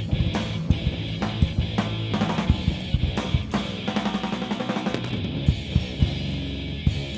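Live punk rock band playing an instrumental passage without vocals: the drum kit's bass drum and snare hits are the loudest, over sustained guitar and bass.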